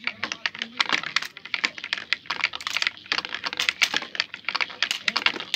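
Glass marbles rolling down a wooden zigzag marble run, clacking against the wooden channel walls at each turn and against one another in rapid, irregular clicks.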